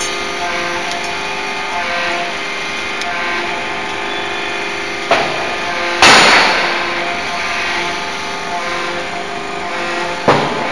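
DY2ZD open-die forging hammer with its machinery humming steadily, striking three heavy blows about five, six and ten seconds in. The middle blow is the loudest and trails off over about a second.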